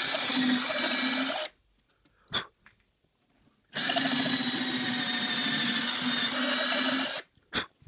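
Electric drill boring a pilot hole into a finished beech handrail, in two runs: a short one of about a second and a half, then a longer one of about three and a half seconds, each followed by a short sharp sound.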